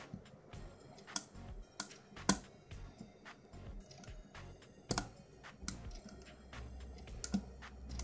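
Irregular light metallic clicking of a standard hook pick working the pin stacks of an ERA six-pin euro cylinder under tension from a tension wrench, during single-pin picking, with a few sharper clicks about one, two and five seconds in. A low steady hum comes in near the end.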